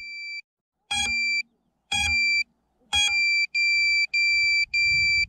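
High-pitched electronic buzzer beeping, the LiPo low-voltage alarm warning that the battery is nearly drained. It gives three single beeps about a second apart, each starting with a click, then settles into quicker, regular beeping a little under twice a second.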